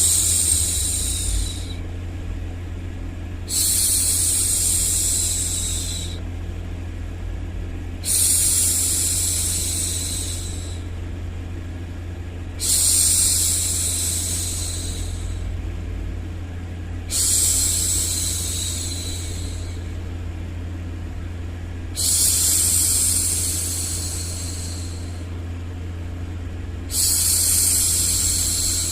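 A woman's voice making long hushing 'shhh' sounds to soothe a baby. Each shush lasts two to three seconds and fades out, and they repeat about every four and a half seconds. A steady low rumbling white noise runs underneath.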